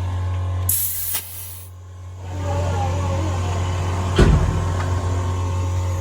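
A short hiss of escaping air lasting about a second, then a single knock about four seconds in, over a steady low hum.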